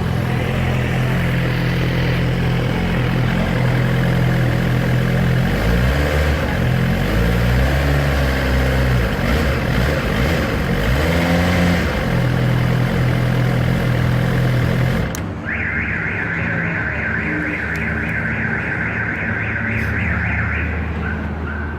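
2017 Suzuki GSX-R1000's inline-four engine running through its stock exhaust, idling, then revved several times with the pitch rising and falling. About fifteen seconds in the engine sound drops away and a rapid, high-pitched electronic beeping takes over for about six seconds.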